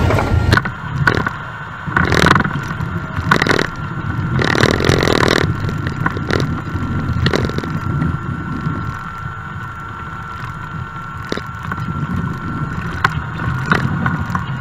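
Small Cessna's piston engine idling, heard inside the cabin as the plane taxis, with irregular bumps and rattles and a steady thin whine above it.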